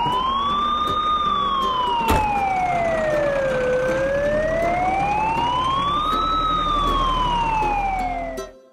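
Police siren in a slow wail. It rises and falls twice over about five seconds per cycle, then cuts off suddenly near the end. A brief click is heard about two seconds in.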